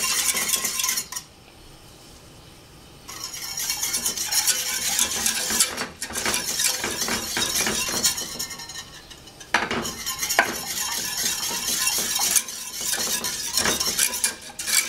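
Wire whisk beating fast in a stainless steel saucepan of hot milk, its wires scraping and clinking against the pan as a flour-and-sugar mix is whisked in to make a roux. It stops for about two seconds a second in, then starts again, with a couple of sharper clinks against the pan partway through.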